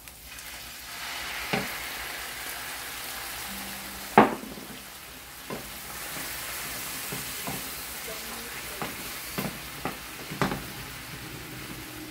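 Sherry cooking wine sizzling as it hits a hot pan of mushrooms, onions and melting butter, with a wooden spoon stirring and knocking against the pan. The loudest knock comes about four seconds in.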